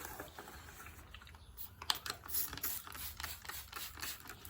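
Faint, irregular light clicks and taps from handling small car parts and a degreaser container on a workbench. They come more often from about two seconds in.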